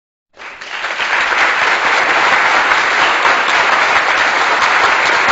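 Crowd applause, rising about a third of a second in and then holding steady.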